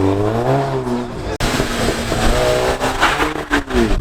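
A tuned car's engine revving: the pitch rises and falls, then rises and falls again, and a quick run of sharp pops follows near the end.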